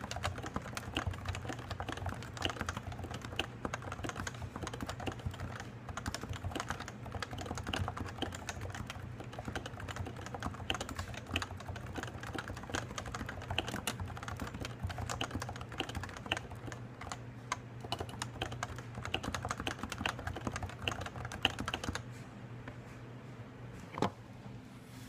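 Typing on a Topre Realforce keyboard with 55 g electrostatic capacitive rubber-dome switches: a steady run of fast, irregular keystrokes that stops about 22 seconds in, followed by one single keystroke or knock near the end. A faint steady hum sits underneath.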